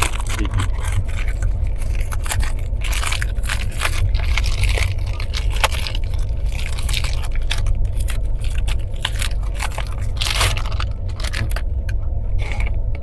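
Steady low rumble of a moving train, with repeated crackling and scraping throughout as a food packet is struggled with and opened.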